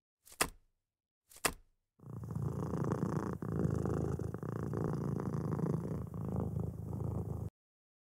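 Two short clicks, then a domestic cat purring in a rapid low rumble for about five seconds, cut off abruptly near the end.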